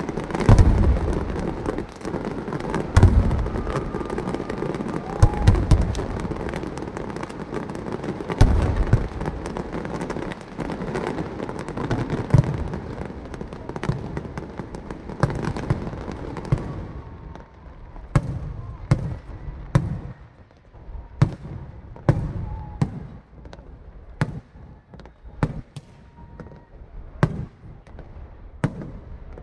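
Aerial fireworks display: deep booms of shells bursting among dense crackling for the first half, thinning after that to separate bangs about once a second.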